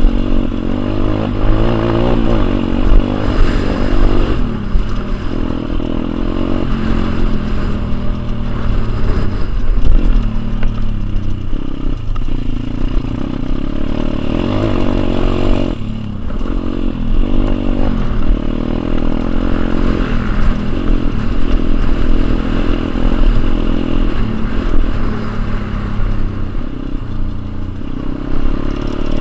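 Pit bike engine running hard around a dirt motocross track, heard from a camera mounted on the bike, with revs repeatedly rising and falling through the corners and a brief drop about halfway through. Heavy low rumble and rattle run under it.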